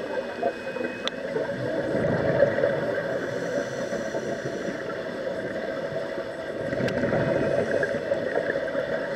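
Muffled underwater noise heard through a camera's waterproof housing, with a scuba diver's exhaled regulator bubbles swelling twice.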